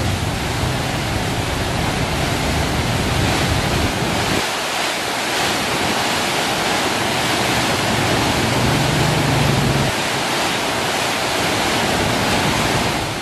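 Swollen river in flood pouring over a concrete weir with nearly all its gates open, and churning white water below it: a steady, loud rush.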